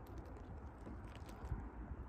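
Faint outdoor background: a low steady rumble with light scattered ticks and rustles.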